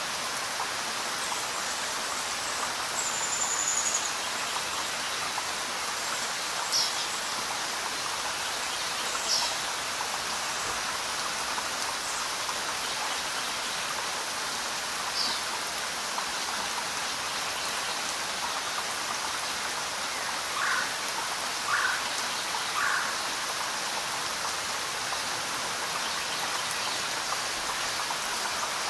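Steady rain falling, an even hiss of many drops. A few brief high chirps come through it, including three about a second apart past the middle.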